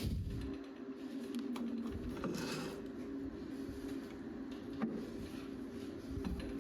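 Small metal lathe running, cutting a steel shaft: a steady mechanical hum with scattered sharp ticks and clicks, and a brief harsher scraping patch about two and a half seconds in.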